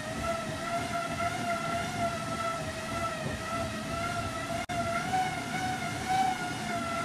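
Road bike tyres spinning on the drums of a set of cycling rollers: a steady whine that wavers gently in pitch, over a low rumble. The sound cuts out for an instant about two-thirds of the way through.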